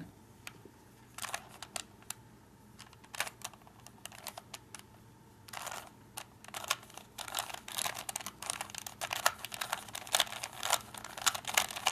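Rubik's cube faces being twisted by hand: irregular plastic clicks and clacks, a few scattered ones at first, then quick dense runs of turns from about halfway in, with one short swish just before.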